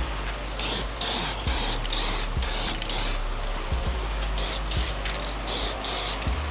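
Aerosol spray paint can spraying gloss black in short bursts, about nine quick hisses with a pause in the middle, while a coat goes onto an engine block.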